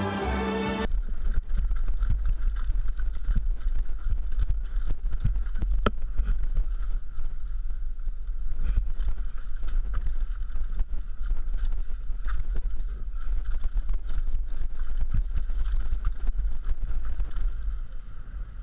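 Wind buffeting the microphone of a helmet-mounted camera on a downhill mountain bike descending a dirt trail, with the bike rattling and knocking over bumps.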